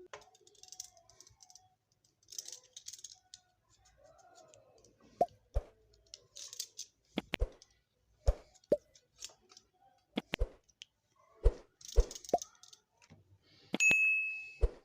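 Metal parts and tools knocking and clinking as an electric iron is taken apart or put back together: scattered sharp taps and a few short scrapes, with one brief high beep near the end.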